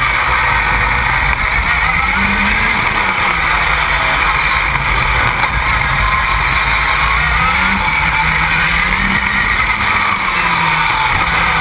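Škoda 1.8-litre turbocharged four-cylinder engine of a four-wheel-drive rallycross buggy, heard onboard at race pace, its revs rising and falling several times through the corners and gear changes. Heavy wind and road noise on the car-mounted microphone.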